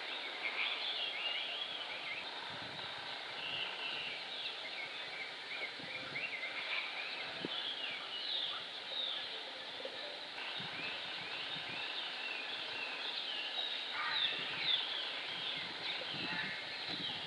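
Small birds chirping and singing throughout, many short high calls over a steady outdoor background hum.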